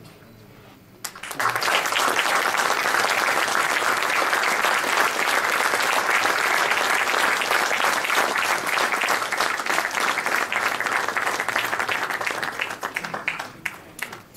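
Audience applauding. The applause breaks out about a second in, holds steady, then thins to scattered claps near the end.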